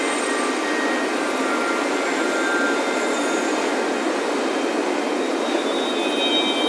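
Ocean surf washing onto a beach as a steady, unbroken rush, with faint wind chimes ringing softly now and then over it.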